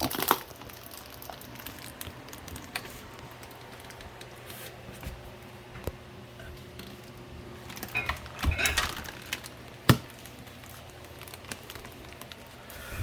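Scattered handling noises: a few sharp knocks and clicks, the loudest near the end, with a short burst of rustling and clattering just before it.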